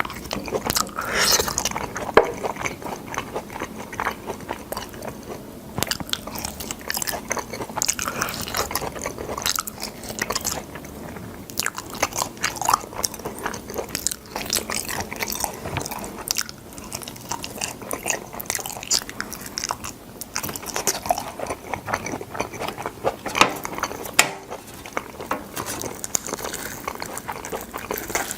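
A person chewing and biting boiled sword bean pods close to the microphone: a continuous run of crunches and wet mouth clicks.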